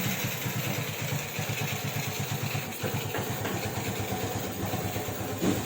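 Keeway KEE 125's single-cylinder four-stroke engine idling steadily with an even, rapid exhaust beat, running after its tune-up.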